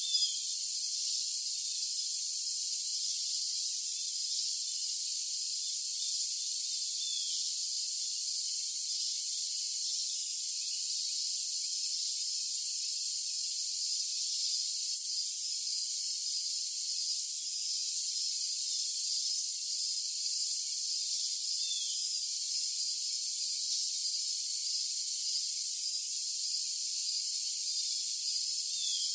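Crickets chirping in a steady pulsing chorus over a high hiss and a steady high-pitched tone, with no low sounds at all. A short falling songbird note cuts through about four times, several seconds apart.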